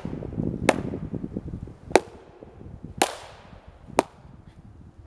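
LARP sword blows landing on a polyurethane foam cuirass: sharp, loud smacks about one a second, five in all, with low rustling under the first one.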